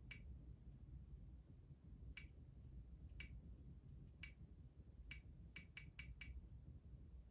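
Faint, sharp computer mouse clicks, about nine of them, spaced a second or so apart and then four in quick succession about five to six seconds in, over a quiet room hum.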